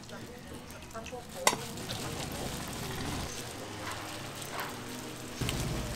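Hotteok sweet pancakes frying in oil on a griddle, a steady sizzle, with one sharp clack about one and a half seconds in.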